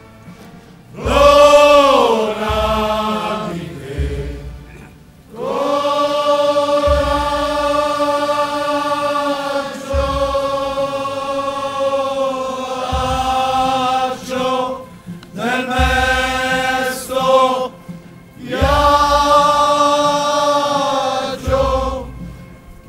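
A large men's choir singing a slow sacred chant in unison outdoors. It holds long steady notes in phrases of several seconds, with short breaks between the phrases.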